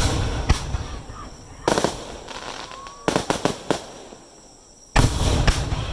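Aerial firework shells bursting, a series of sharp booms, each with a rumbling echo: one as it opens, another a little before two seconds in, a quick cluster of three around three seconds, and a heavy run of bursts near the end.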